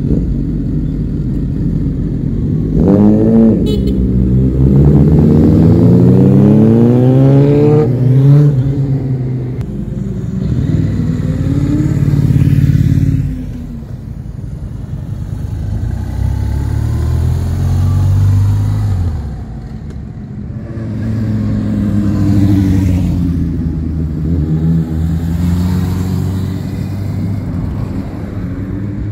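Motorcycles riding past one after another, engines revving as they accelerate away, the pitch rising in steps through the gears. The loudest pass is a pair of sport bikes in the first dozen seconds, followed by two softer passes later on.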